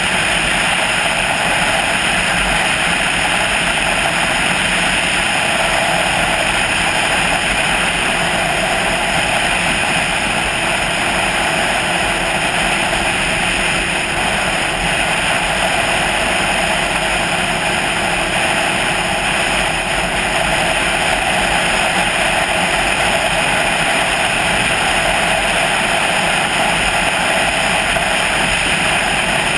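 Steady wind and road noise from an action camera mounted on a vehicle cruising at highway speed, a constant rushing with no change in pace.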